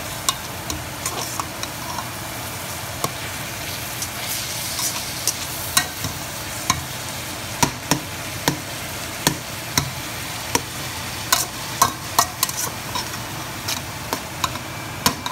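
Pot of ground beef and onions simmering on the stove: a steady sizzling hiss with scattered sharp pops and clicks, more frequent from about the middle on. The range hood vent fan runs underneath.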